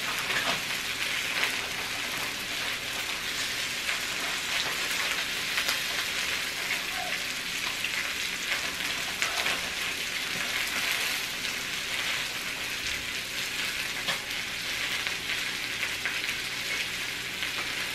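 Marinated chicken thighs sizzling on an electric tabletop grill: a steady frying hiss with many small crackles and pops.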